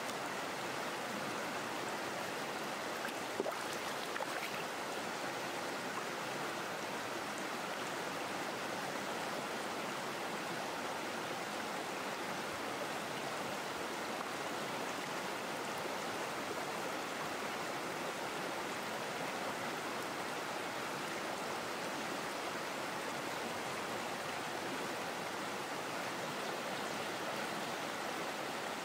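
Steady rush of a flowing stream, with one brief tap about three seconds in.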